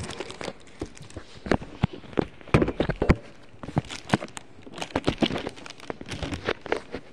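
Scattered knocks, taps and rustles of handling as a phone camera is moved about and propped on a couch, the sharpest knocks about halfway through, followed by lighter knocks and shuffling from someone moving around beside a cardboard box.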